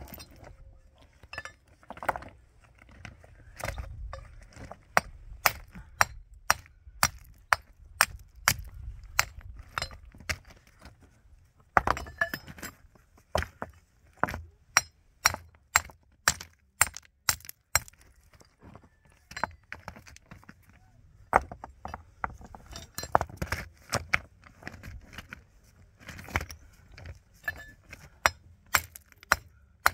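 A hammer striking stone in a steady run of sharp, clinking blows, about two a second, broken by a few short pauses.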